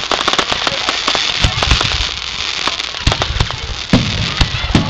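Fireworks finale: a dense rapid crackle and a steady hiss from ground fountains and rising comets, with several deep thuds of shells from about a second and a half in.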